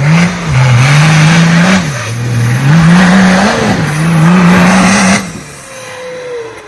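Off-road vehicle engine revving hard, its pitch climbing and dropping back several times as the throttle is worked, then cutting off abruptly about five seconds in.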